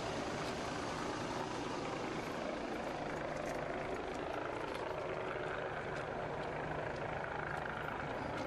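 Steady rumble and hiss of road vehicles, even in loudness throughout, with no single event standing out.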